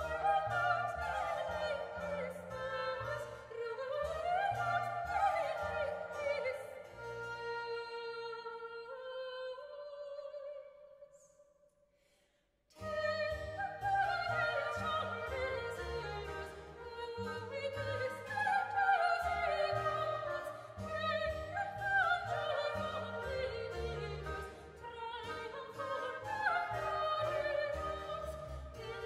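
Soprano singing classical chamber music accompanied by flute, oboe, harpsichord and double bass. About ten seconds in, the music fades away to almost nothing, then cuts back in abruptly a few seconds later.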